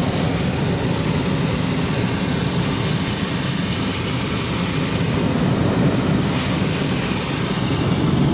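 Hot-air balloon's propane burner firing in one long, steady blast: a loud, even roar.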